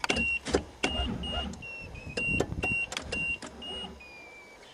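A Toyota Cressida's starter clicking and chattering irregularly on a weak battery, with only a low brief rumble and no start; the battery is too flat to crank the engine. A high beep cuts in and out throughout.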